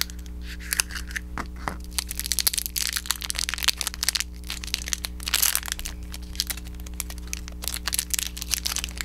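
Small toy mystery-pack packaging being opened by hand: plastic and card crinkling and crackling in a dense run of sharp crackles, thickest about two to six seconds in.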